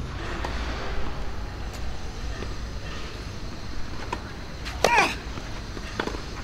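Tennis serve and rally: a ball is bounced before a serve, then a short cry with a pitch that rises and then falls comes about five seconds in as the serve is struck, and a sharp racket-on-ball knock follows about a second later, over a steady low rumble.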